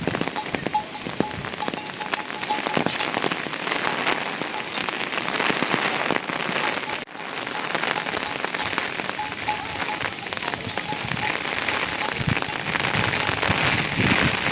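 Rain mixed with hail falling steadily onto surfaces, a dense hiss full of many sharp little ticks, which breaks off for an instant about halfway.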